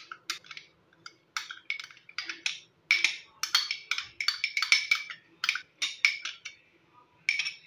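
Metal spoon repeatedly scraping and tapping inside a small glass bowl, clearing out the last of the melted ghee: a quick, uneven series of short clinks and scrapes.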